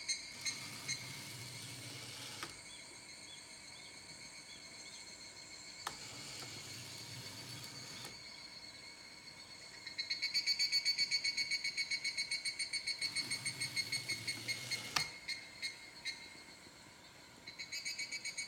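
Sound effects from a model railway diorama's playback unit: a rapidly pulsing, bell-like electronic tone, about five pulses a second. It fades after the start, comes back loud about ten seconds in until about fifteen seconds, and returns near the end, with faint chirps and a low hum in the quieter stretches.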